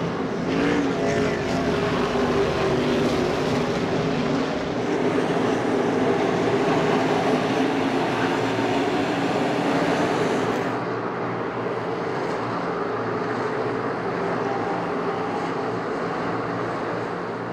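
NASCAR Cup stock cars' V8 engines running hard on a dirt track, several cars at high revs with engine notes rising and falling as they pass. About eleven seconds in the sound turns duller and a little quieter.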